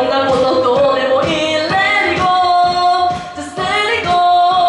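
A woman singing a melodic R&B-style line into a handheld microphone, holding long notes, over backing music with a steady beat.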